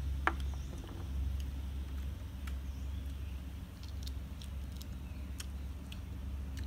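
Small crisp clicks and smacks of someone eating chicken with her fingers, over a steady low hum, with one sharper knock about a third of a second in.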